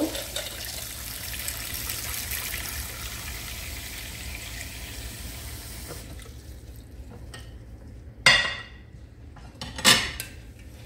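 Kitchen faucet running cold water into a stainless steel saucepan of hard-boiled eggs, shut off about halfway through. Two sharp knocks follow, a second and a half apart.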